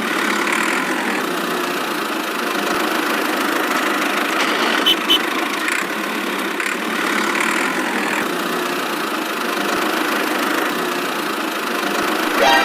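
Small engine or motor running steadily, a continuous even drone with a couple of faint clicks about five seconds in.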